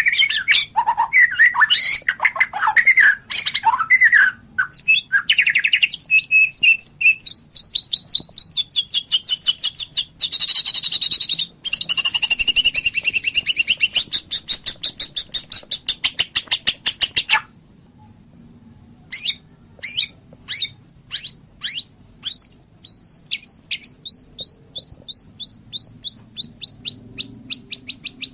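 White-rumped shama singing a varied song: loud whistled phrases and fast rattling trills. After a short pause in the middle comes a run of quick downward-swept notes that speeds up.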